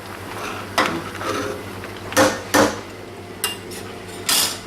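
Kitchen utensil clinking against a cooking pot of lentils on the stove: about five sharp separate knocks spread over a few seconds, the last a short scrape.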